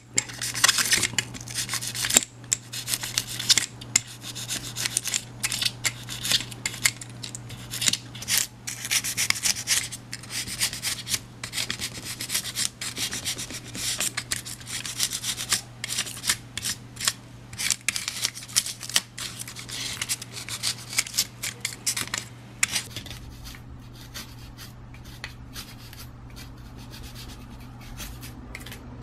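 Snap-off utility knife cutting and scraping through styrofoam (expanded polystyrene) in quick, irregular scraping strokes, over a low steady hum. The strokes stop about 22 seconds in.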